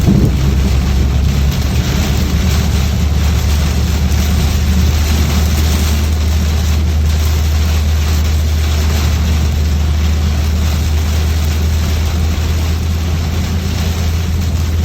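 Inside a car driving through heavy rain: a steady low rumble of engine and road, with the hiss of rain on the car.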